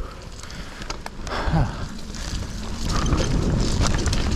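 Mountain bike riding a dirt trail: steady rumbling tyre and wind noise on the microphone, with scattered rattling clicks and knocks from the bike.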